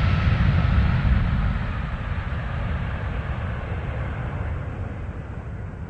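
Airbus A320 jet engines winding down, heard from the cabin: a low rumble and hiss that fades steadily.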